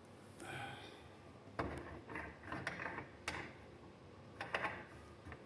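A lamp shade being lifted off its metal wire harp: a few sharp clicks and rattles with light scraping and rustling between them.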